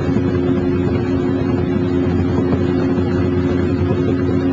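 A motorboat's engine running steadily at cruising speed, a constant loud hum with a rumble beneath it.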